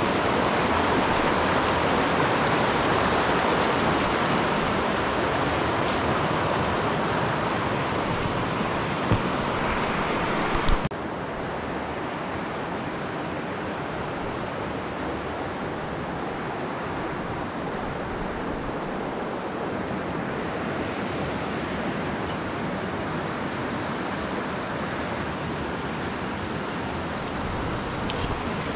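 Mountain stream rushing over boulders, a steady noise of running water. About 11 seconds in it drops suddenly to a softer, quieter flow, just after two brief knocks.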